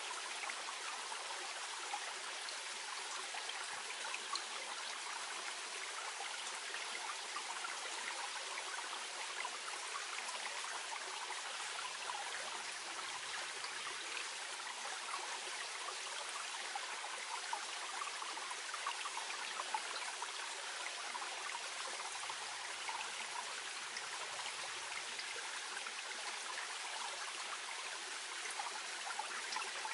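Small mountain stream flowing gently over stones: a steady babble and trickle with small splashes, without change.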